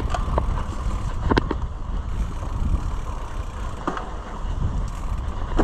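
Mountain bike riding along a dirt trail: a steady low rumble of wind and tyre noise, with a few sharp knocks and rattles from the bike, one about a second in and another near four seconds.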